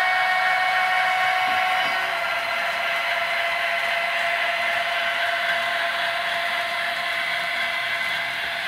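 Model diesel locomotive running past, its motor and gears whining steadily over the hiss of wheels on the rails. Some of the whine's tones drop away about two seconds in.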